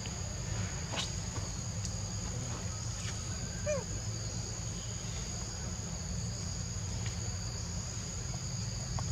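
Steady high-pitched droning of insects in forest undergrowth, two unbroken tones over a low steady rumble. A single short rising call sounds about midway, with a few faint clicks.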